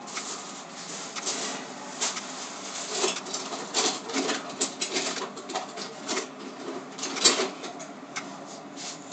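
Irregular light clicks, taps and rustling of objects being handled, with no steady rhythm.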